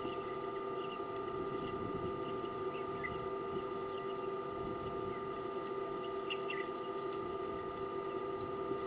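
A steady electrical or mechanical hum made of several fixed tones, with faint short bird chirps scattered over it.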